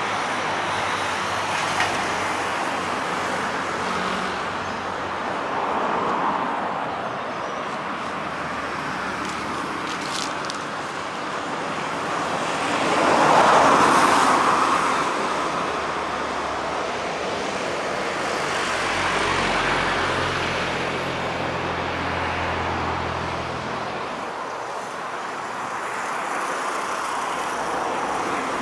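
Steady road-traffic noise, with vehicles swelling past now and then. The loudest passes about 13 seconds in, and a low engine hum runs for several seconds later on.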